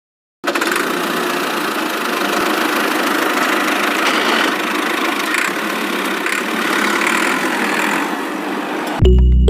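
A small motor running steadily, a dense even noise with almost no bass, starting about half a second in and cut off abruptly near the end by music.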